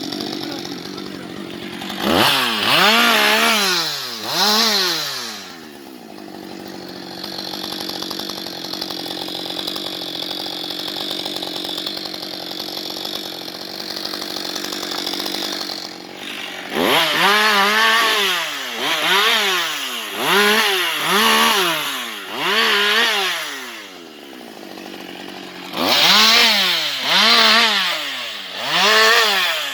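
Husqvarna 560XP two-stroke chainsaw idling, then revved in quick throttle blips that rise and fall in pitch: two of them about two seconds in, a run of about four from about seventeen seconds, and more near the end.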